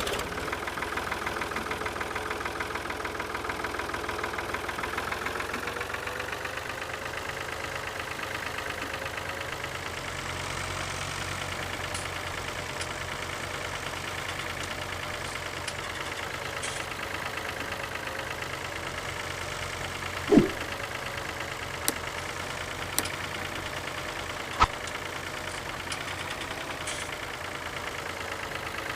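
A battery-powered toy vehicle running steadily with a fast, fine buzz, its pitch wavering slowly up and down. There are a few sharp clicks and one louder knock about two-thirds of the way through.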